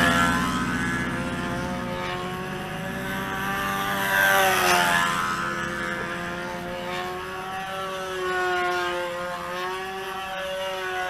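Control-line model airplane (Brodak Tanager) engine buzzing with its propeller as the plane flies circles on its lines. The buzz swells and drops in pitch each time the plane passes, about every four seconds.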